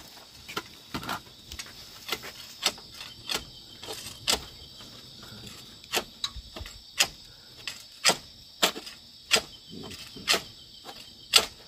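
Irregular sharp knocks and cracks, about one or two a second and uneven in strength, as a pole strikes a smouldering wasp nest stuck under a concrete eave to knock it loose. A steady high insect chirr runs underneath.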